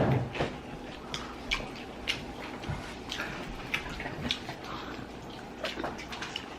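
Sounds of people eating at a table: scattered small sharp clicks and smacks, a few a second at irregular intervals.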